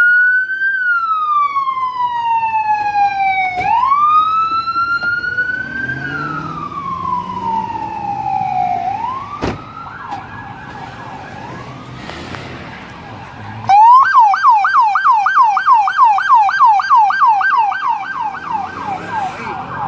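Sheriff's patrol car siren, loud and close: a slow wail rising and falling in long sweeps, switching about fourteen seconds in to a fast yelp of about four cycles a second. A single sharp click is heard about halfway through.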